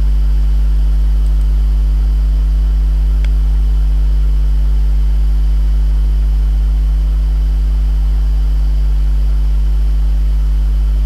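Steady electrical mains hum with a buzz of overtones and a hiss, running unchanged, with one faint click about three seconds in.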